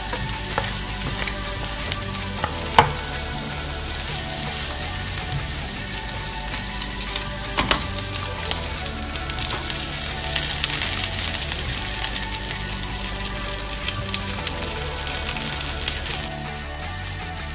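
Chopped onions and then sausages sizzling in hot oil in a nonstick frying pan, with a few sharp clicks of a utensil against the pan. The sizzle cuts off suddenly near the end.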